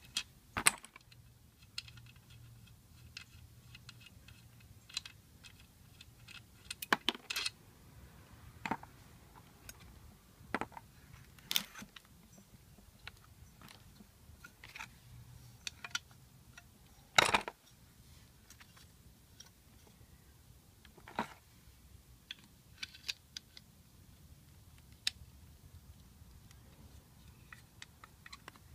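Scattered metallic clicks and clinks of hand tools and small parts being handled while an alternator is taken apart: a ratchet and socket set down, small nuts and washers, and a screwdriver against the alternator's rear cover. The loudest is a single sharp knock about two-thirds of the way through.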